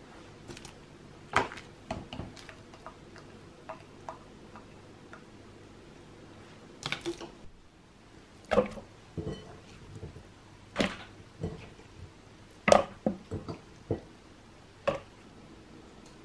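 Kitchen handling sounds as blanched broccoli is moved: a spoon knocking and scraping in a steel saucepan and florets dropping into a glass bowl of ice water, then florets tipped into a plastic food-processor bowl. The sound is a run of separate, irregular knocks and soft thuds, with a short lull about seven and a half seconds in.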